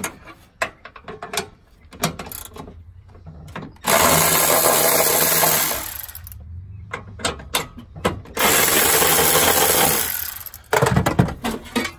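Milwaukee cordless electric ratchet on a long socket extension running twice, about two seconds each time, spinning out two hold-down bolts of a Toyota Prius hybrid battery pack. Short clicks and knocks of the socket and tool come before, between and after the runs.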